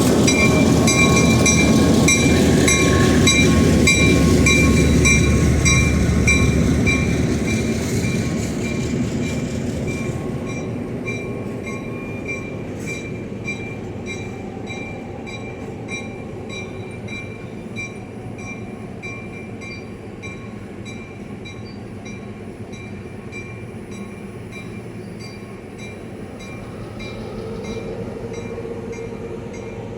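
Passenger rail car running along the track, heard from inside the car: a loud, even rumble for the first several seconds that eases off to a lower steady running noise, with a steady high whine and a regular light ticking throughout.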